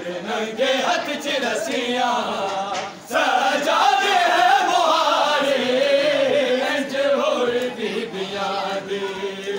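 Men chanting a noha (Shia lament) together in a group, one voice holding a long note that falls slowly about halfway through, with sharp slaps now and then from matam chest-beating.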